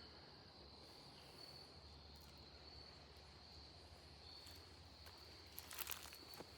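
Faint outdoor ambience with a steady high-pitched insect drone throughout, with a short burst of crackling near the end.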